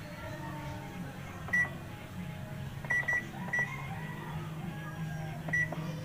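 Short electronic beeps from a Sharp top-load automatic washing machine's control panel: single beeps and a quick double beep, five in all, all at the same high pitch, over a low steady hum.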